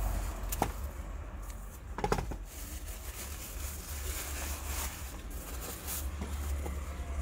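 Handling of plant packaging: a sharp click about half a second in and a short burst of clicks and rustling around two seconds in, with faint rustling between. Under it runs a steady low rumble of wind on the microphone.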